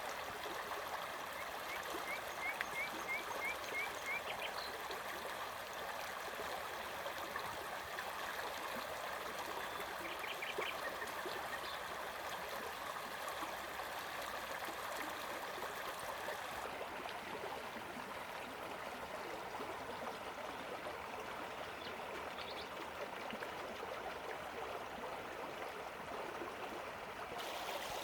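Stream flowing steadily, with small birds chirping over it: a quick run of about six short chirps a couple of seconds in, another cluster around ten seconds and a few more near twenty-two seconds.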